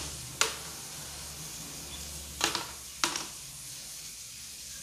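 Small aluminium cake tins being set down in a large aluminium baking pan: three short metallic knocks over a low steady hum.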